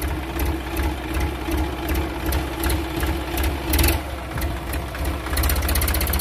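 Massey Ferguson 5245 DI tractor's diesel engine running with a fast, even knocking pulse while the tractor is stuck in deep mud. It surges louder about four seconds in and again near the end.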